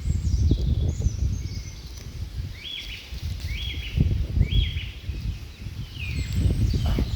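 Small birds chirping, including three alike short calls about a second apart in the middle. A loud, uneven low rumble of background noise runs under them throughout.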